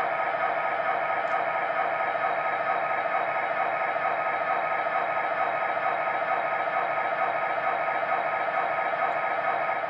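Onboard sound system of a three-rail model SD40-2 diesel locomotive playing its diesel engine running sound through the model's small speaker, steady and quite loud.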